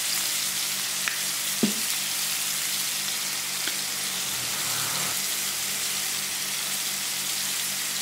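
Fish steaks frying in oil in a pan: a steady sizzling hiss, with a brief light knock about a second and a half in.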